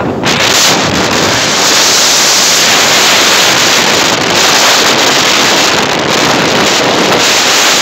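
Loud wind buffeting the microphone of a camera carried on a moving two-wheeler: a steady rush of noise that jumps up just after the start and drowns out everything else.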